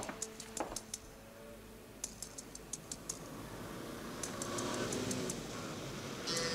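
Soft, sharp ticking in short runs of several clicks, recurring about every two seconds. From about four seconds in, a car engine rises beneath it.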